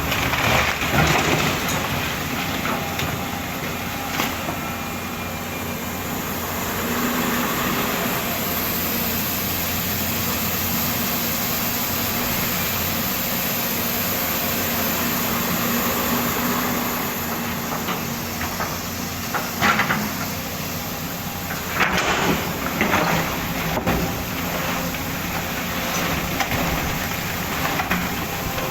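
Volvo excavator's diesel engine running steadily under working load, with sharp knocks and scrapes now and then as the machine digs, the loudest a cluster about two-thirds of the way through.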